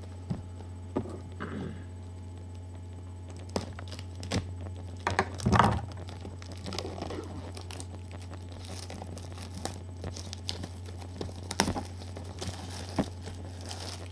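Packaging on a sealed box of baseball trading cards being torn and crinkled open, in scattered rustles and clicks, the loudest about five and a half seconds in. A steady low hum runs underneath.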